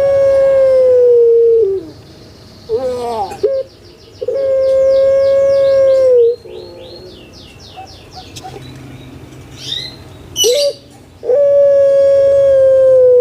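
Puter pelung dove (Streptopelia risoria) calling: three long, steady coos of about two seconds each, dropping in pitch at the end, with short rising notes leading into the later ones. Between the coos comes a quick run of high chirps from a smaller bird.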